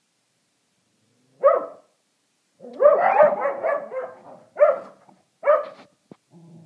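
Shetland sheepdogs barking at a squirrel outside. One bark, then a quick run of rapid barks, then two more single barks.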